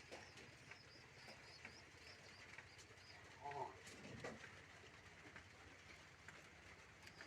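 Pigeons cooing faintly, with one louder call about three and a half seconds in, over light scattered clicks.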